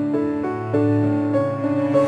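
Background music: slow keyboard notes, each held and then changing to the next about every half second.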